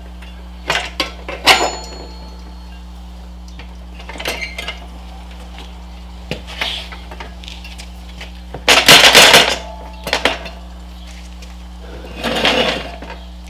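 Metal tire irons clinking and scraping against a dirt-bike wheel rim as the rear tire bead is levered on over the rim lock, with several sharp clinks and two longer bouts of scraping and rubbing.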